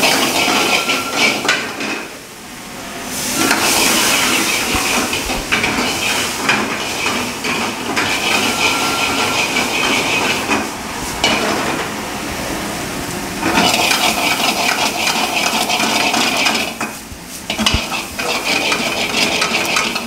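Chopped onions sizzling in hot oil in a metal frying pan, with a steel ladle scraping and clanking against the pan as they are stirred and tossed. The sizzle and clatter ease off briefly a few times.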